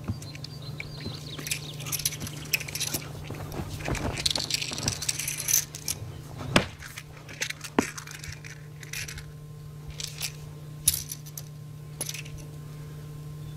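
Drunken-style Shaolin staff form performed on sand: scattered swishes, taps and knocks of the staff, feet and robes. The loudest is a sharp knock about six and a half seconds in. A steady low hum runs underneath.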